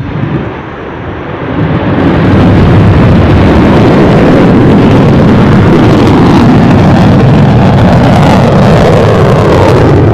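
Solid-fuel rocket motor of a Shaheen-II ballistic missile roaring at launch. The roar starts suddenly, builds over the first two seconds, then holds steady and very loud.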